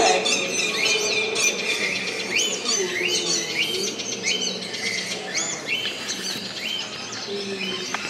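Chorus of rainforest animal calls: many short chirps, each a brief note that hooks sharply upward in pitch, repeating every half second or so over a steady low hum.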